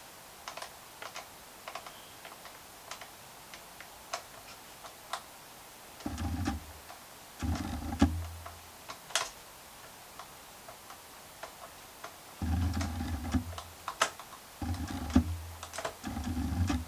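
Screws being driven back into a laptop's plastic case: light clicks and taps of the screwdriver and small parts, and from about six seconds in, several low buzzing runs about a second long each.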